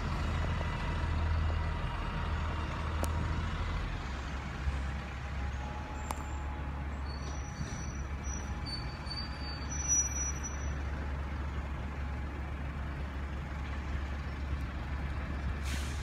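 Steady low rumble of bus engines idling. A few faint, short high-pitched squeals come through between about six and eleven seconds in.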